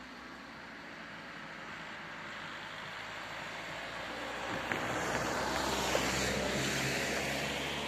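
A van towing a small open trailer drives past over the level crossing: engine and tyre noise builds to a peak and fades, with two sharp knocks about a second apart as the wheels go over the rails.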